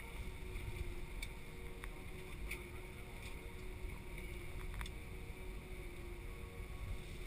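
Cabin noise of an Airbus A319 taxiing after landing: a steady low rumble with a faint steady hum and a few light clicks.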